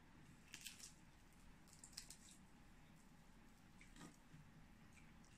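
Faint eating sounds: fingers tearing at crispy pata (deep-fried pork leg) and chewing, with a few soft crackles and smacks about a second and a half apart.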